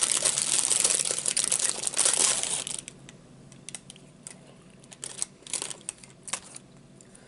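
Paper crinkling and rustling, dense and loud for about the first three seconds, then a few scattered soft rustles and clicks.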